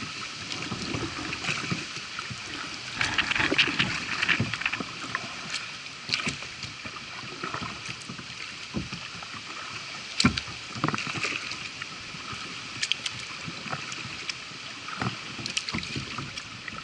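Kayak paddle strokes in floodwater: irregular dips and splashes with water washing against the hull, and one sharp knock about ten seconds in.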